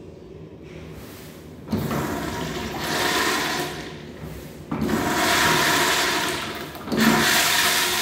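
Urinal flushing through its chrome flush valve: rushing water starts suddenly about two seconds in and surges twice more as it washes the bowl.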